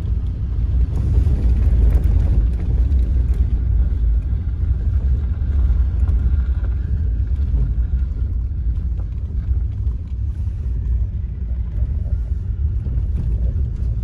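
Steady low rumble of a Toyota driving over a sandy dirt road, heard from inside the cab: tyre and road noise with the engine running underneath.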